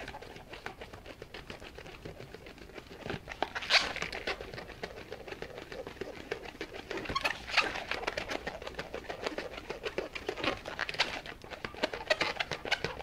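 A 260 latex modelling balloon squeaking and creaking in rapid strokes as it is twisted round and round into small bubbles, with a few louder squeaks spread through.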